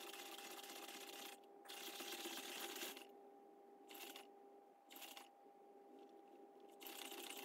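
Faint whirring of a Sony Aibo ERS-1000 robot dog's joint motors, in short spurts that start and stop abruptly as it moves its head, over a faint steady hum.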